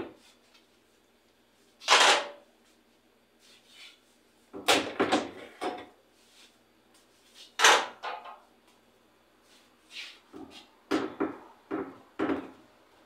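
Clear plastic refrigerator door bins and shelves being pulled out and handled: a series of plastic knocks and scraping rattles in separate bursts, with several close together near the end.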